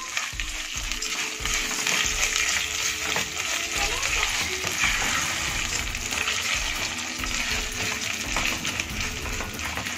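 Washed, drained rice sizzling steadily in hot ghee and oil with browned vermicelli in a pot as it is stirred and sautéed.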